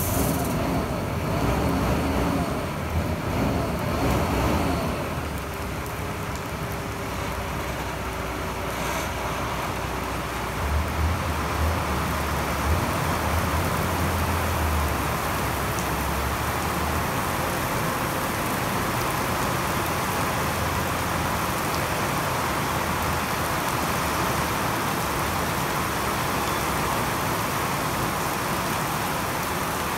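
Heavy truck's diesel engine pulling a side-lifter trailer away, its low drone loudest for several seconds around the middle. Steady rain on the wet yard and containers runs throughout and is the main sound near the end.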